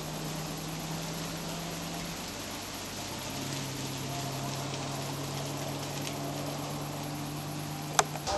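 Steady background hiss with a low steady hum, and one sharp click near the end.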